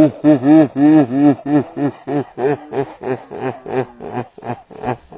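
A man laughing in a long run of rhythmic "ha" pulses, about three to four a second, getting quieter toward the end.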